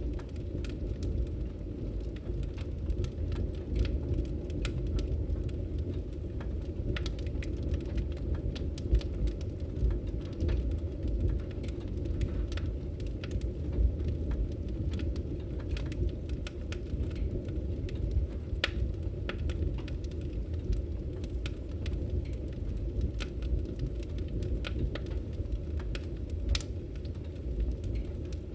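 Wood fire burning in a fireplace: a steady low rumble of the flames with frequent small crackles and pops scattered irregularly throughout.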